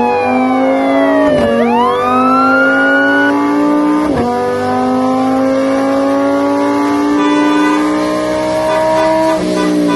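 Car engine accelerating hard through the gears. The pitch climbs steadily and drops sharply at each upshift: about a second and a half in, around four seconds in, and again near the end.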